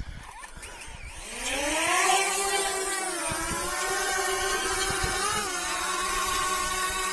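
A small DJI Mavic quadcopter's motors and propellers spinning up about a second in, the buzzing pitch rising and then holding steady with slight wavers.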